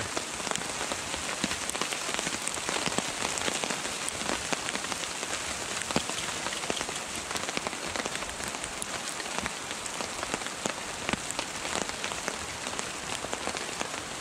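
Steady rain pattering on the tarp overhead: a dense, even hiss of many small drop impacts.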